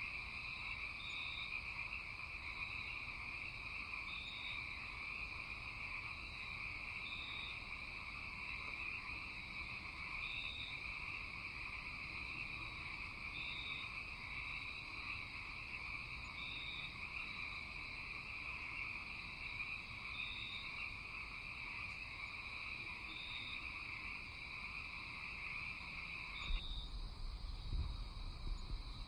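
Night-time animal chorus: a steady high trill with a short higher call repeating about every three seconds. Near the end the trill cuts off suddenly and a low rumble with a few soft bumps takes over.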